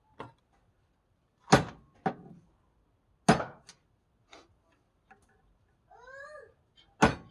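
A series of sharp knocks, about six, irregularly spaced, the loudest ones around one and a half, three and seven seconds in. About six seconds in there is a short pitched call that rises and falls, like a meow.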